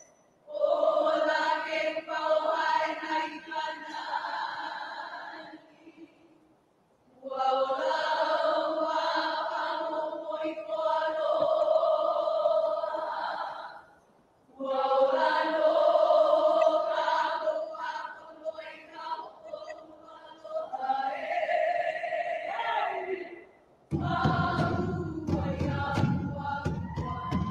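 Group of women chanting a Hawaiian oli in unison, in three long phrases with short breaks. Near the end, a sudden louder noisy sound with sharp strikes cuts in.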